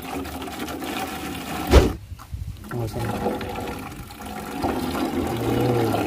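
Liquid gurgling and slurping as a mixed soft drink is sucked up from a jar through lengths of garden hose. A sharp knock sounds a little under two seconds in.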